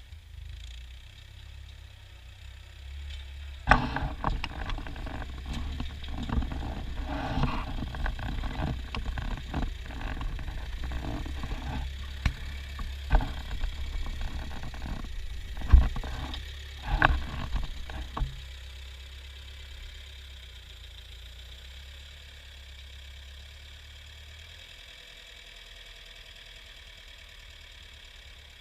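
Ford farm tractor engine running. From about four seconds in to about eighteen seconds it is joined by a louder stretch of clattering and sharp knocks, then it settles back to a steady, quieter hum.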